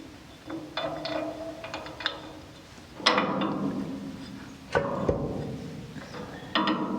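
Metal parts clinking and knocking, each hit leaving a short ringing tone: steel suspension links and hardware being handled and fitted to the chassis. Light clinks come first, then three louder knocks, about three seconds in, just before five seconds, and near the end.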